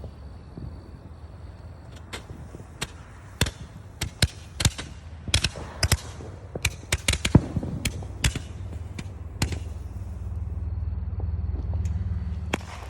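Consumer fireworks going off: a quick, irregular string of sharp bangs, followed by a steady low rumble near the end.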